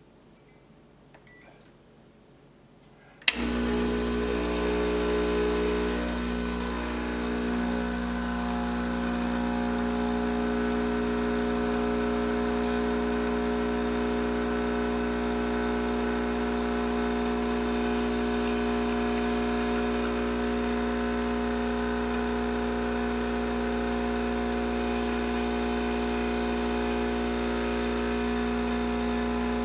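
A few light clicks, then about three seconds in an espresso machine's pump switches on and buzzes steadily, a loud electric hum, as the shot is pulled.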